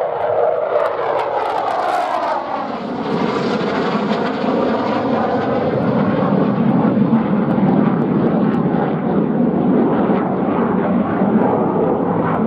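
McDonnell Douglas F-15E Strike Eagle's twin jet engines, loud and continuous as the jet flies low past overhead. The tone sweeps lower about two to three seconds in as it passes, then holds as a steady deep noise.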